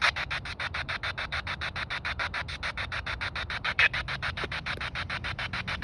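Spirit box sweeping through radio stations, giving out chopped bursts of static at about eight a second.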